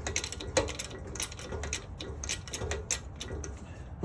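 Hand socket ratchet clicking in quick, uneven runs of several clicks a second.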